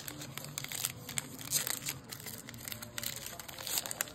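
Baseball card pack wrappers crinkling and cards being handled, a run of short, irregular crackles and rustles.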